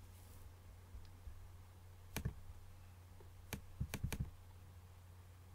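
A few sharp clicks from computer input: one about two seconds in, then a quick run of four between three and a half and four seconds, over a low steady hum.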